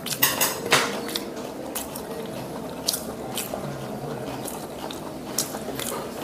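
Close-up eating sounds: chewing of raw fish, with a quick run of small clicks in the first second and scattered single clicks after.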